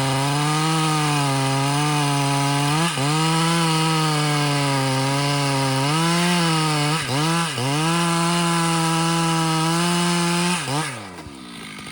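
Stihl MS 881 two-stroke chainsaw held at high revs while cutting wood, its note dipping briefly under load about three seconds in and twice around seven seconds. Near the end the revs fall away sharply and it drops to a much quieter idle.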